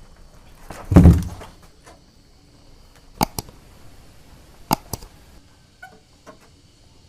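A single dull thump about a second in, then two sharp clicks a second and a half apart, followed by a few faint ticks.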